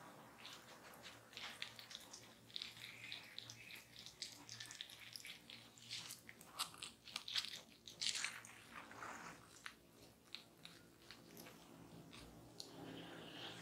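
Hands massaging fruit pulp over bare skin: faint, sticky, wet contact noises made of many irregular little clicks and rustles, with a few louder ones about six to nine seconds in.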